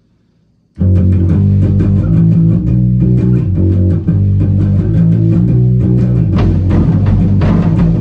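A rock song starts abruptly about a second in, with bass guitar and guitar playing. Drum hits come through more strongly in the second half.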